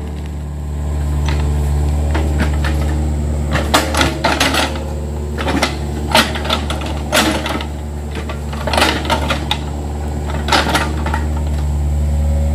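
Yanmar mini excavator's diesel engine running steadily, with a series of sharp metallic clanks and knocks from the bucket and arm linkage as it digs and pushes soil, most of them after the first few seconds.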